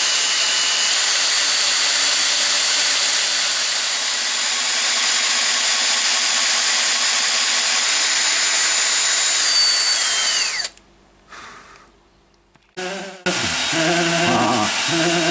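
Power drill with an auger bit boring into timber at speed, running steadily with a high whine, then winding down and stopping about ten seconds in.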